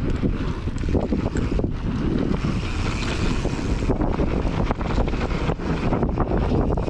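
Mountain bike descending a packed-dirt trail at speed: heavy wind noise on the microphone over tyre roll on the dirt, with frequent small clatters and rattles from the bike.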